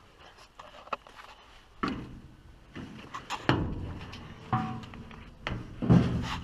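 Irregular knocks and clunks, with a brief metallic ring among them, from tools and parts being handled while the buggy's engine is being unbolted; the loudest knock comes near the end.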